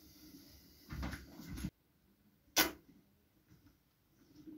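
Sauce squirted from a squeeze bottle in a hissing sputter that grows louder and stops abruptly, then a single sharp click.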